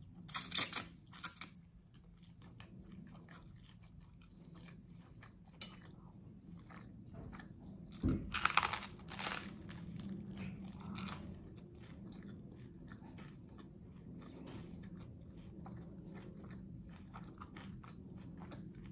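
Close-miked eating: spaghetti strands slurped into the mouth near the start, then a loud crunchy bite into toasted garlic bread about eight seconds in, followed by steady chewing with small crunches.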